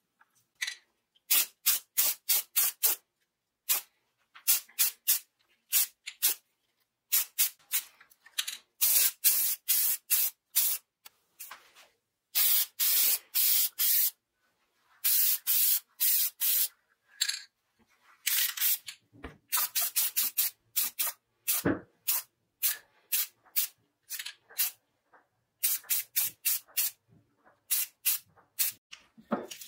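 Aerosol spray paint can sprayed in many short bursts of hiss, with a few longer sprays of a second or two. There are a couple of soft thumps in between.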